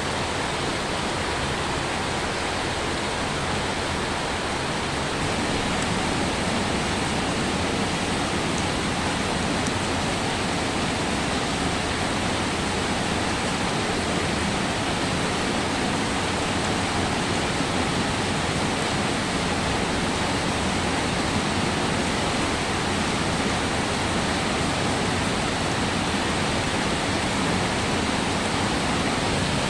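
Steady rain falling, an even hiss of water that grows a little louder about five seconds in.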